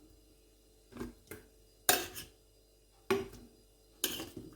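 Kitchenware being handled while a small smoothie blender is loaded: about five separate sharp knocks and clinks, spaced unevenly, each with a short ring.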